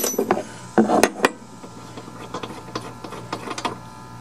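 Metal clinks and rattles of a spark plug socket and the just-removed spark plug being handled, with sharp clicks at the start and about a second in, then lighter clicking that stops near the end.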